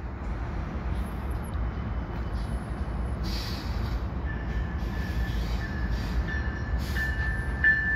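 Diesel freight train approaching slowly, led by a GMD SD70M-2 locomotive: a low rumble of engine and rails that grows gradually louder. A thin, steady high whine joins about four seconds in.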